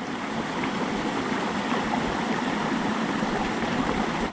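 Small mountain creek running: a steady rush of water.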